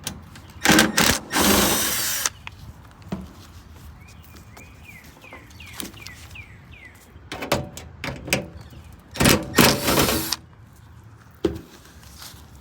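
Cordless drill/driver spinning out screws to open an A/C condenser's access panel, in short whirring bursts: two near the start and a cluster of bursts about seven to ten seconds in.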